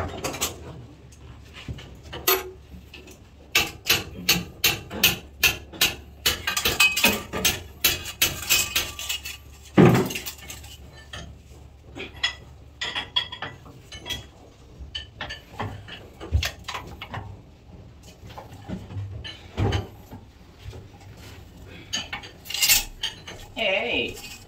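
Metal hand tools clinking and tapping on metal engine parts: a run of quick, evenly spaced clinks, a heavier knock about ten seconds in, then scattered clinks.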